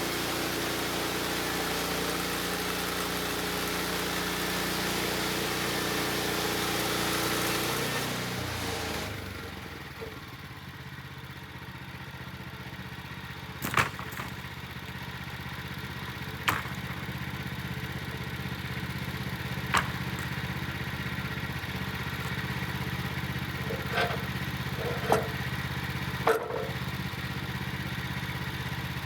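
Portable bandsaw mill running under load as the blade cuts through a board, then the engine throttles down about eight seconds in and settles to a steady idle. Sharp knocks come every few seconds over the idling engine.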